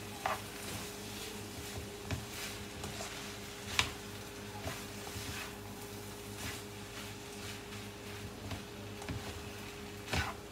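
Spatula scraping and tapping against a frying pan as fried rice is stirred and turned, in irregular knocks, the sharpest about four seconds in and another near the end. A steady low hum runs underneath.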